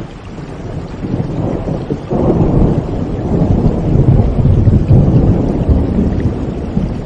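Thunder rumbling over steady rain, building about a second in and swelling loud about two seconds in.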